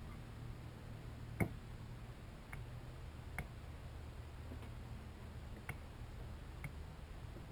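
Sharp, irregular clicks of a bird's beak pecking at seed on a clear plastic window feeder, about five in a few seconds, over a steady low hum.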